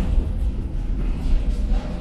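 Tram running on its rails, heard from on board: a steady low rumble with a faint steady whine over it.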